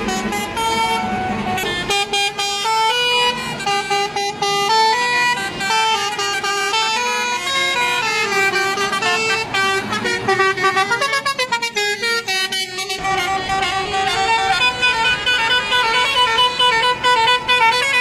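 A lorry's multi-tone telolet air horn playing a tune, its notes stepping up and down several times a second, loud and without a break.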